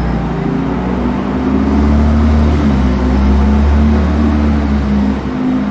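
A deep, steady machine hum with a droning tone above it, swelling about two seconds in and easing near the end.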